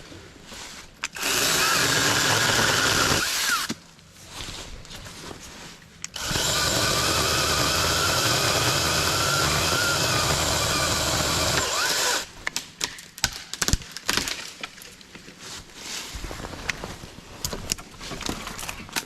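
Cordless 20-volt mini chainsaw running in two bursts, one of about two seconds and then one of about six seconds, cutting into a limb. Irregular sharp cracks and rustling follow.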